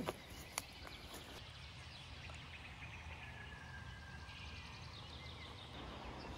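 Two sharp clicks in the first second, then faint outdoor ambience with soft chirping and a short, thin whistle about four to five seconds in.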